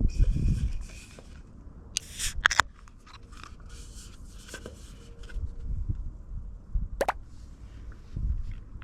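Rustling and handling noises with low thumps, broken by sharp clicks and knocks: a quick cluster about two seconds in and a single one about seven seconds in.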